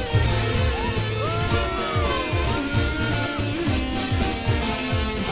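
Background music: an instrumental passage with guitar over a steady drum beat.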